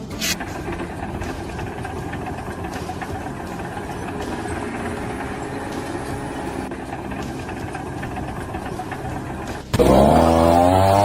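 An engine running steadily. Near the end, a louder motor suddenly cuts in and its pitch rises as it speeds up.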